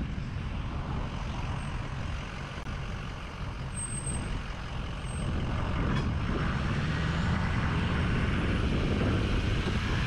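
Road traffic with a truck running close by, growing louder about halfway through, over a steady low rumble of wind on the microphone.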